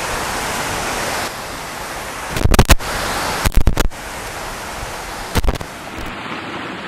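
Steady rushing noise of a distant waterfall. From about two seconds in come three short, loud bursts of rumbling buffeting on the camera microphone.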